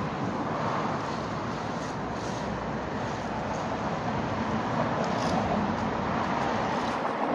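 Steady low rumble of motor vehicles, with no distinct events standing out.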